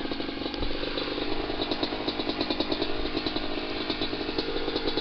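Small off-road vehicle's engine running steadily under load as it climbs a steep, loose shale hill, with light rattling clicks over it.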